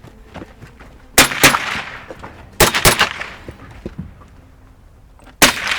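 Gunshots on a shooting range: sharp cracks, each with a short echoing tail, coming as two close pairs about a third of a second apart, a bit over a second in and near three seconds, then another shot near the end.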